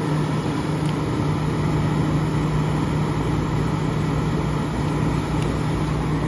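1970 Signature 6,000 BTU window air conditioner running steadily while cooling: an even rush of air from its fan over a steady low hum.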